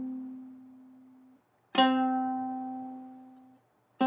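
A single ukulele note near middle C, with its harmonics at two, three and four times the pitch, plucked twice: one note rings out and stops short, another is plucked about two seconds in and dies away, and a third is plucked at the very end.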